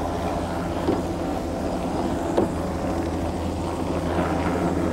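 Steady low engine drone with an even, unchanging pitch, and a couple of faint knocks about one and two and a half seconds in.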